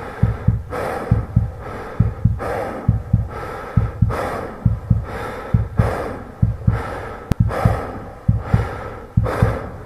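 A man breathing heavily in hard, rhythmic breaths, a sharp breath about every second, over a steady run of deep low thuds that often come in pairs.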